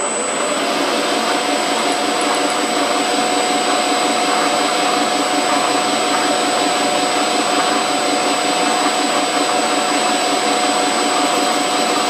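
Metal lathe running steadily with a constant whine, turning a brass workpiece. The whine rises in pitch in the first second as the spindle comes up to speed.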